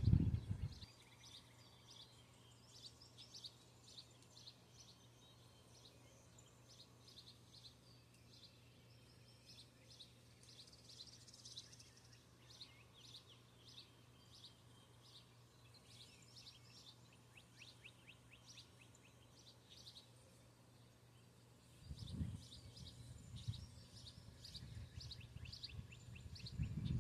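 Wild birds chirping faintly, many short repeated chirps from several birds. A low rumbling noise comes in near the end and grows louder.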